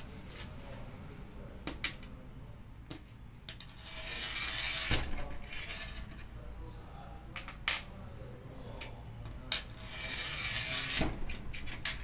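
4.5 mm Greyhound lead airgun pellets spun by hand on a plywood board, giving two rasping whirs of about two seconds each as a pellet spins and wobbles on the wood, with sharp clicks as pellets are set down and tip over. It is a spin test of how true the pellets run after resizing.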